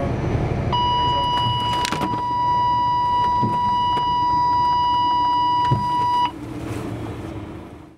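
Collision warning of a Scania truck's Advanced Emergency Braking system: a steady high beep held for about five and a half seconds, then cut off suddenly, over the truck's engine and road noise in the cab. It warns of an imminent collision with the car ahead as the truck closes on it.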